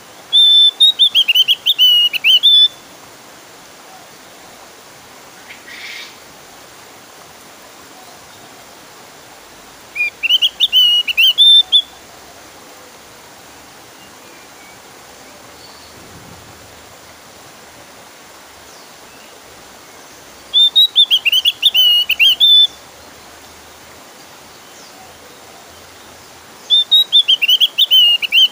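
Javan grey-throated white-eye (opior jawa) singing: four loud bursts of rapid, warbling notes, each about two seconds long, spaced several seconds apart.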